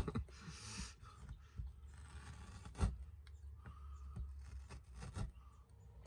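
Faint rubbing and scraping of a hard plastic socket panel being handled against carpeted trim, with one sharp click a little under three seconds in.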